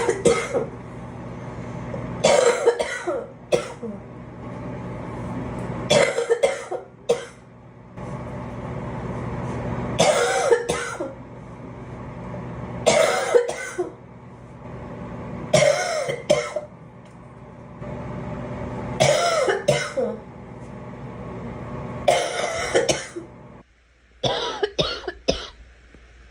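A girl coughing in repeated short fits of two or three coughs each, one fit every three to four seconds. A steady low hum sits behind the coughs and stops near the end.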